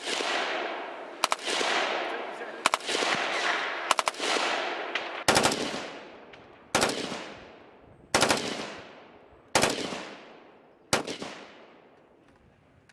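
L85A2 (SA80) 5.56 mm automatic rifle firing short full-auto bursts, about one every one and a half seconds, nine in all. Each burst rings out in a long echo.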